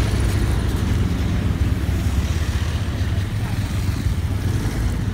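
Steady low rumble of road traffic heard while moving along a street, with a bus passing close alongside near the start and motorcycles going by.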